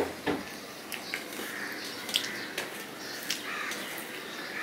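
A person eating rice and curry by hand: mouth and chewing sounds, with fingers mixing rice on a steel plate. Scattered soft clicks come at irregular intervals.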